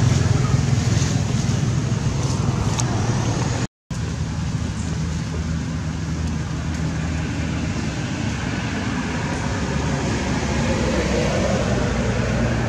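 Steady low outdoor rumble with no distinct events, which breaks off for an instant about four seconds in.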